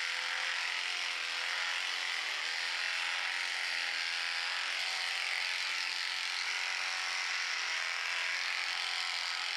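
Corded electric horse clippers running steadily, a pitched hum with a bright hiss over it, as the blades cut fine hair on a horse's cheek and muzzle.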